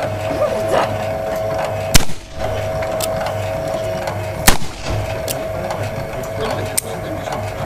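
Two revolver shots about two and a half seconds apart, over a steady machine hum from the electric motor that drives the mechanical horse.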